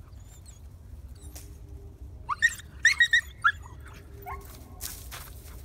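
Puppy yipping: a quick run of about five short, high-pitched yips about two seconds in, then one more a second later.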